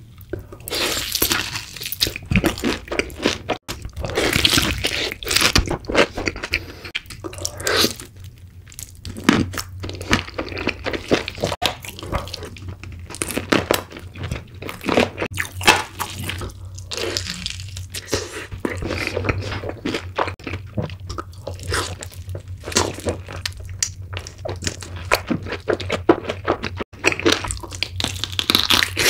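Close-miked crunching and chewing of crispy fried chicken coated in cheese sauce: irregular crackly bites and chews throughout, over a steady low hum.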